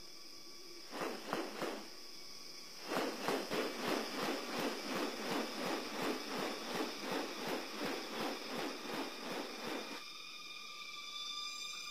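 A male riflebird (bird-of-paradise) displaying: a few rustles, then from about three seconds in a regular run of rustling pulses about three a second that stops near ten seconds, the sound of its wings as it sways in courtship display. A steady high insect drone runs behind.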